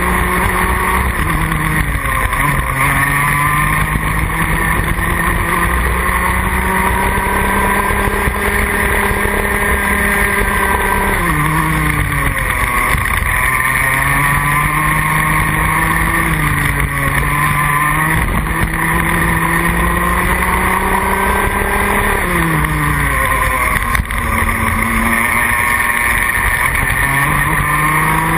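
Rotax Max Junior 125cc two-stroke kart engine at full throttle, heard from on board. Its pitch climbs steadily along each straight and falls sharply several times as the kart brakes for corners, then climbs again as it accelerates out.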